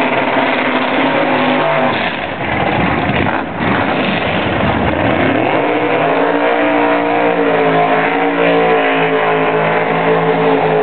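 Loud drag-racing car engine revving, its pitch sweeping up and down for the first few seconds, then held at high revs from about five seconds in as the car does a smoky burnout.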